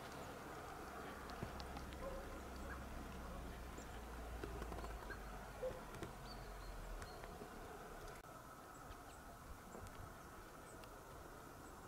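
Faint outdoor ambience: a low rumble of wind on the microphone that stops about seven seconds in, with scattered faint clicks.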